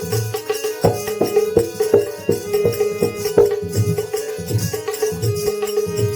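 Instrumental break in a live devotional bhajan: a steady held note over hand-drum playing. Sharp strikes come thickly in the first half, and a low repeating drum beat takes over from about four seconds in.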